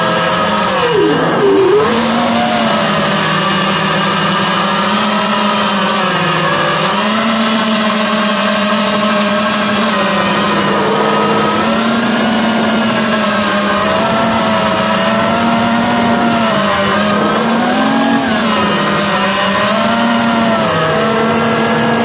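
FPV quadcopter's electric motors whining, the pitch rising and falling as the throttle changes, with a sharp drop and swoop back up about a second in.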